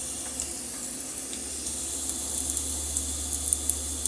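Diced onions frying in hot oil in a saucepan: a steady sizzling hiss with scattered small pops and crackles, more of them in the second half.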